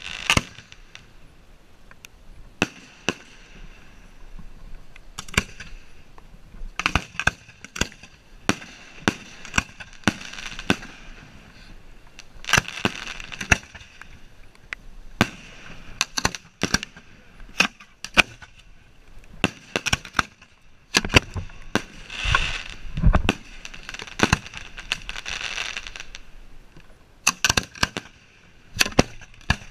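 Hand-lit firework shells firing from ground mortar racks: an irregular, rapid series of sharp reports, with hissing between them. One deeper, louder boom about two-thirds of the way through.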